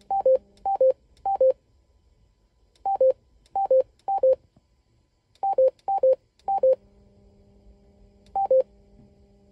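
Yaesu FTM-200DR mobile radio's speaker giving quick two-note beeps, high then low, about a dozen pairs as the memory channel steps down. Under them runs a steady low hum that is present on the digital (DN) channels and drops out for a few seconds in the middle while an FM channel is up. That hum is the standby noise this radio makes in AMS or digital mode but not in FM.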